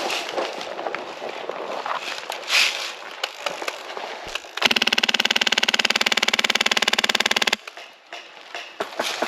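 An airsoft electric gun fires one long full-auto burst of about three seconds: a rapid, even rattle with a motor whine under it, starting about four and a half seconds in and cutting off suddenly. Before and after it there are scattered clicks and rustling.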